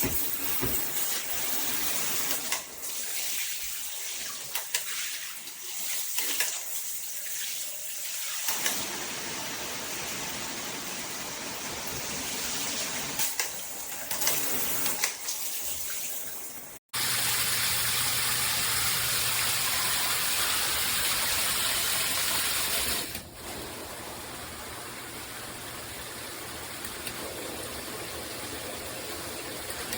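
Water spraying from a handheld filtered shower head as a steady rushing hiss, with a few light knocks in the first half. About 17 seconds in it cuts abruptly to a louder, even spray, which becomes quieter again about six seconds later.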